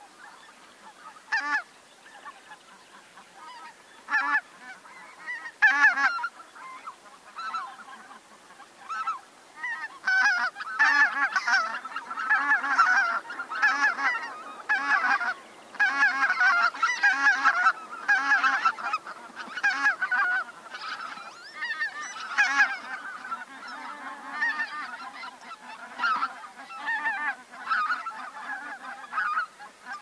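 A flock of geese honking: scattered single calls at first, then a dense chorus of overlapping honks from about ten seconds in, thinning out again near the end.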